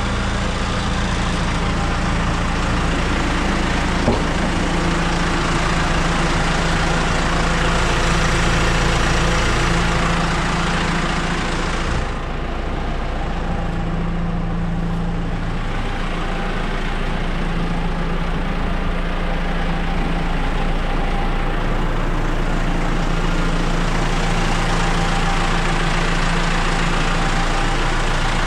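JCB 4CX backhoe loader's diesel engine running steadily, with a single short knock a few seconds in. About twelve seconds in, the hiss over the engine falls away and the sound turns duller, while the engine hum carries on.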